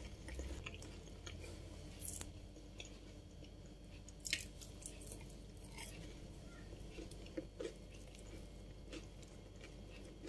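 Crisp, honey-soaked fried pastry twists made from gaufrette wafers crackling as gloved hands break and press them: a few short, scattered crunches.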